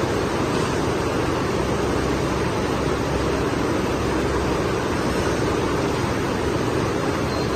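Mesh belt tunnel furnace drying line running: a steady, even rushing noise with no change in level.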